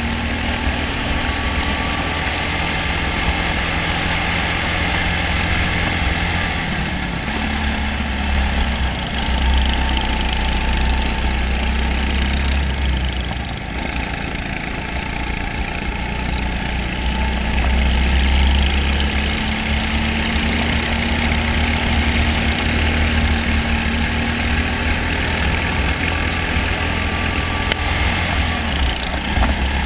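Racing kart's engine running under way, heard from the driver's seat, its pitch drifting slowly up and down as the kart speeds up and slows through the corners, over a steady rush of noise.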